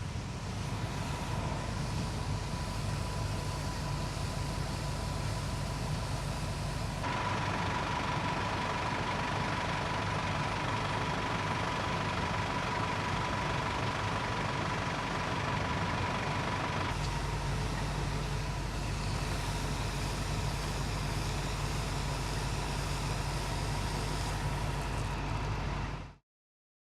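Large trucks idling, a steady low engine rumble under a constant high hum and hiss. The sound changes abruptly twice, then cuts off near the end.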